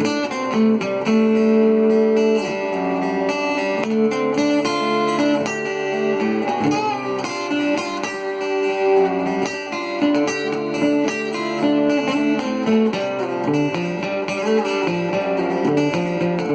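Cort GA5F-MD acoustic-electric guitar amplified through its Fishman pickup, with digital reverb and compression. A looped chord part sustains under picked melody notes.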